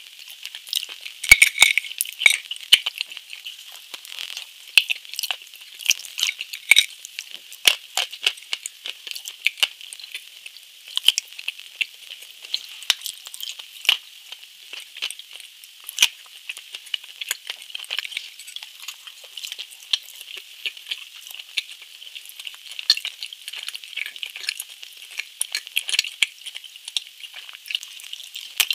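Close-miked eating: bites and chewing of a chocolate-coated dessert with flaked almonds, a dense run of sharp crackles and clicks as the shell breaks and is chewed.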